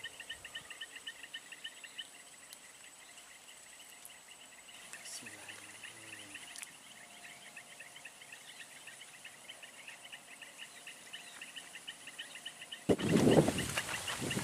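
Insects trilling steadily in fast, cricket-like pulses over an otherwise quiet background. About thirteen seconds in, a sudden loud burst of noise breaks in and carries on to the end.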